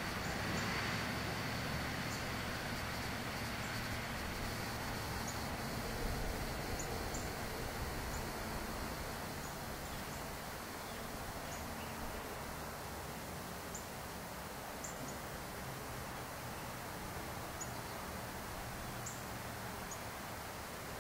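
Outdoor ambience: a low steady rumble with scattered short, high chirps, and a thin high buzz that fades out in the first few seconds.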